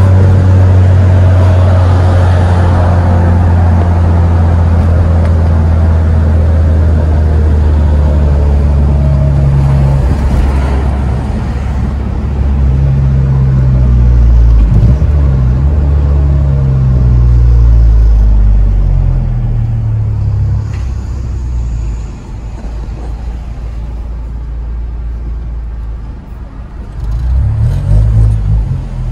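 Honda Civic Si's 2.4-litre four-cylinder running through a crazy loud exhaust, heard from inside the cabin as a steady low drone under way. The pitch shifts through the middle, then the sound drops to a quieter low rumble as the car slows, with a short rise near the end.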